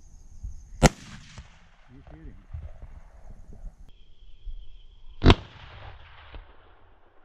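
Two rifle shots about four and a half seconds apart, each a sharp crack followed by about a second of echo rolling away. A thin, steady, high insect buzz runs underneath.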